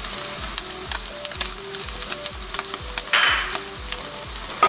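Scrambled eggs and bacon sizzling in hot bacon grease in a nonstick pan, with dense crackling spatters and a wooden spatula stirring. The sizzle cuts off suddenly at the end. Background music with a steady beat plays underneath.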